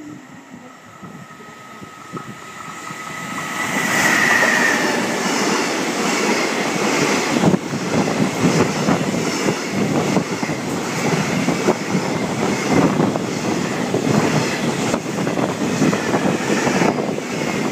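A JR Freight EF210 electric locomotive and its train of Koki 100-series container flat wagons passing through a station. The sound grows louder as the train approaches, peaks as the locomotive goes by about four seconds in, then settles into a steady clatter of wagon wheels over the rail joints.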